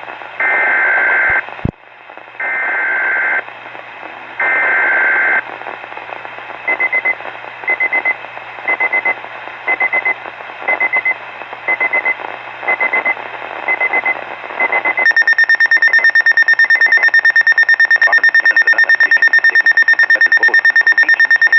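Weather radio emergency alert tones for a severe thunderstorm warning: three one-second bursts of screechy digital alert-header tones (EAS/SAME coding), then a run of short electronic beeps about once a second. About two-thirds of the way in they give way to a steady, high, rapidly pulsing alarm tone.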